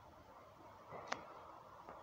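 Faint, steady background with one sharp click about a second in and a softer click near the end.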